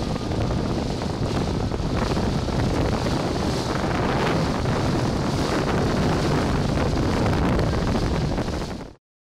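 Wind buffeting the camera microphone over the wash of choppy lake water, a steady rushing noise that cuts off abruptly near the end.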